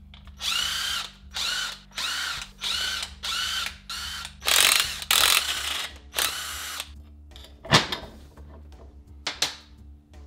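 Cordless power tool run in about nine short trigger pulls, its motor whirring up and down each time as it works the bolts on a BMW differential housing's side retainer, followed by two sharp metal clicks.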